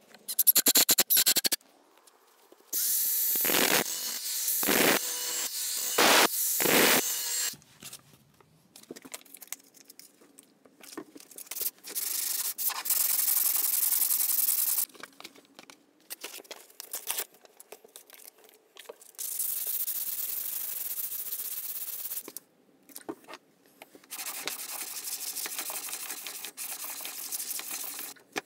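Rust being scrubbed off a steel handsaw blade by hand with a sanding block and abrasive stone, in several stretches of steady rubbing. The first few seconds hold louder power-tool noise, with a quick run of clicks at the very start.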